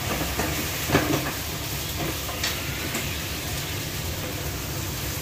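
Sauce sizzling and hissing in a hot wok as it is poured in and stirred with a wooden spatula, with a few sharp knocks of the spatula on the pan about a second in and again between two and three seconds in.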